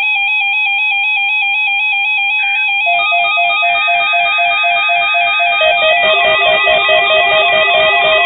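Several NOAA weather alert radios sounding their electronic alarms together, triggered by the required weekly test: steady beeping tones that step back and forth between two pitches. More alarm tones join in about three seconds in and again about six seconds in.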